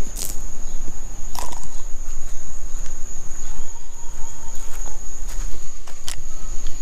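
Insects keep up a steady high-pitched trill. A few sharp clicks come over it, about a quarter second in, near a second and a half, and about six seconds in, over a low rumble.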